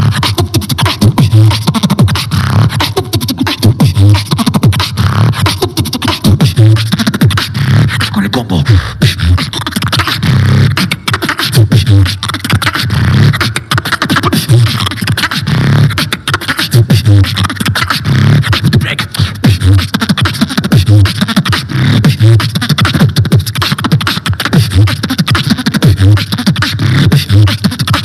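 Beatboxing into a handheld microphone, amplified: a steady beat of deep bass kicks with sharp, clicking and hissing sounds over them, running without a break.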